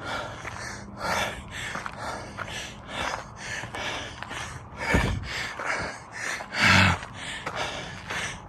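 A man panting hard with quick, rapid breaths, out of breath from running up a steep hiking trail, with a louder voiced gasp about two-thirds of the way through.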